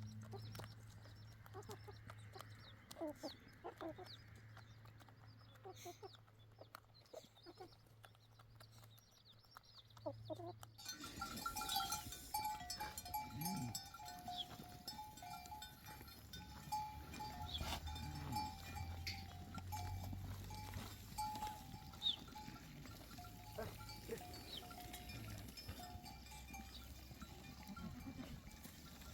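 A flock of sheep bleating, with scattered calls. The calls are faint and sparse at first, then come closer and more often from about a third of the way in.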